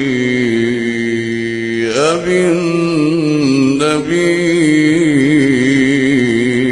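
A male reciter chants the Quran in a deep voice, holding long, slowly bending melodic notes with short breaks about two and four seconds in.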